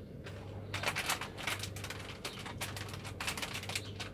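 Someone biting and chewing crispy French Fries 2000 potato-stick snacks, a rapid run of crunches starting about a second in.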